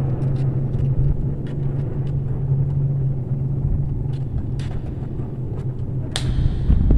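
A steady low hum runs throughout, with a few faint clicks and taps of a small screwdriver fastening a double light switch into its plastic mount; the sharpest click comes about six seconds in.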